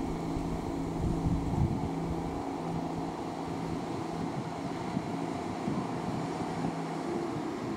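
CrossCountry Class 170 Turbostar diesel multiple unit approaching along the platform, its underfloor diesel engines giving a steady hum that fades out about seven seconds in. A low rumble at the start eases off after about two seconds.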